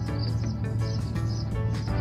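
Background music with a steady beat over a low held bass.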